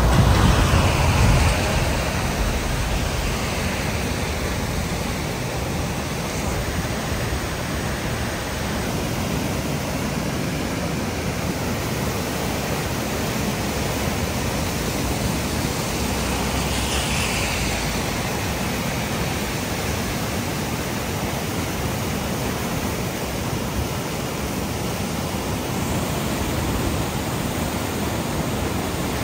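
Brown floodwater of the swollen Los Angeles River rushing down its concrete channel and churning white against a concrete bridge pier, a steady rushing of water. A louder low rumble in the first second or so.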